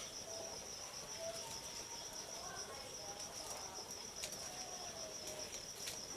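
Steady, fast-pulsing chirring of crickets and other insects, with a few faint clicks.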